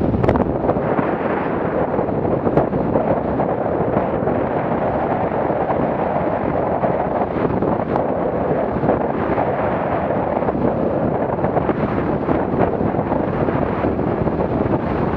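Steady wind buffeting the microphone of a small motorboat under way at about 6 knots, mixed with the rush of water along the hull.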